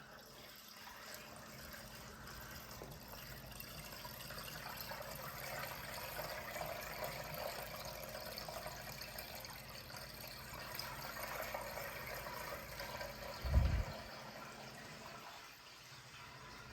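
Water rushing and gurgling through an external Bean Animal aquarium overflow and sump, growing louder over the first several seconds, with one short low thump near the end. The owner takes the noise for air being pulled into the drains as the gyre pumps push a sheet of water over the weir.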